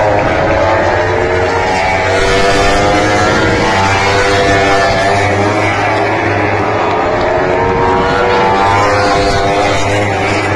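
MotoGP racing motorcycles' 1000 cc four-cylinder engines running at high revs, several bikes' notes overlapping and rising and falling in pitch as they accelerate and slow.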